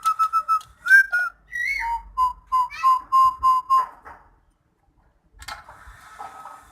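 A lory (nuri parrot) whistling rapid runs of clear repeated notes, about five or six a second, with a short upslurred note between the runs. It falls silent about four seconds in; a short scratchy rustle follows near the end.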